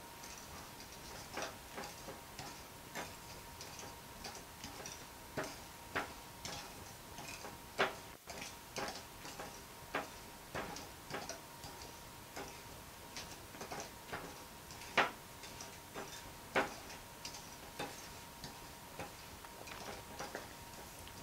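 Metal wire whisk clinking against a glass mixing bowl at an uneven pace while stirring flour into a thick cake batter of eggs, sugar and oil.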